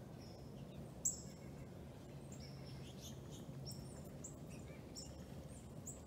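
Wild birds chirping: many short, high chirps, some quickly falling in pitch, with one louder chirp about a second in, over a faint low hum.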